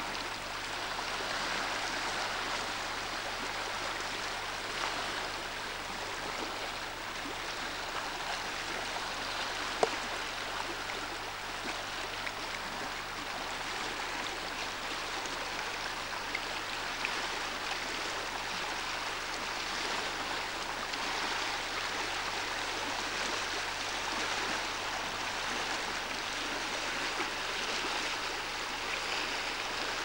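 Small waves lapping and washing on a stony lakeshore, a steady rushing wash, with one sharp click about ten seconds in.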